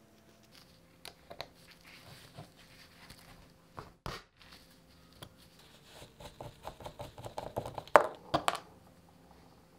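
Small metal brake parts and an Allen key clicking and rattling in gloved hands as a caliper brake shoe's fixing bolt is loosened and pulled out. Scattered clicks give way to a quick run of clicks in the second half, the loudest about eight seconds in.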